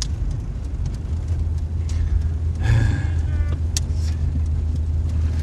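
Car on the move: a steady low engine and road rumble, with a brief higher-pitched sound about three seconds in.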